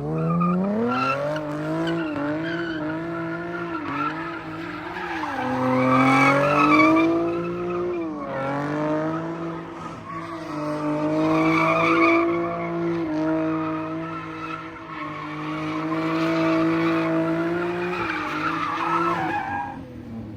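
A car engine held at high revs, its pitch swinging up and down, with tyres squealing as the car slides in circles. It grows louder three times, about 6, 12 and 17 seconds in.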